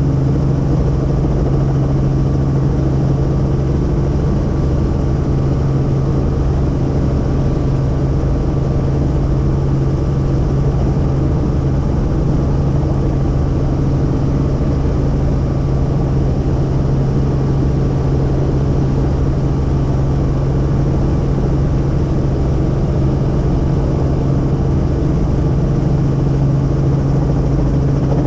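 Helicopter in flight, heard from inside the cabin: a loud, steady drone of rotor and engine with a strong low hum.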